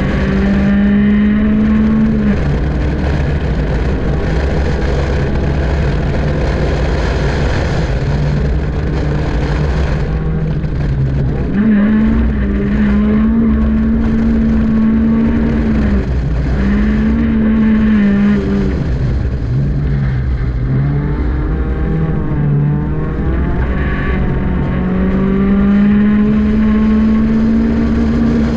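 Honda Civic four-cylinder engine heard from inside the cabin on an autocross run, revving hard. Its pitch climbs, holds high for a few seconds, then drops several times as the driver lifts, brakes and shifts.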